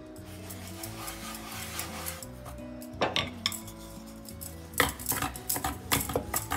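A hand brushes and spreads dry flour across a wooden board. From about three seconds in, a wooden rolling pin rolls a ball of dough flat, knocking and clacking against the wooden board several times. Soft background music plays underneath.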